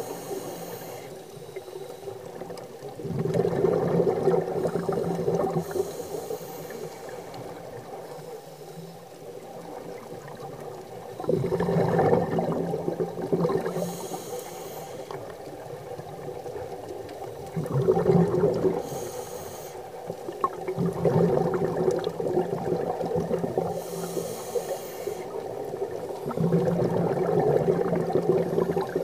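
A scuba diver breathing through a regulator: a short hiss on each inhale, then a longer gurgling rush of exhaled bubbles, about five breaths spaced five to six seconds apart.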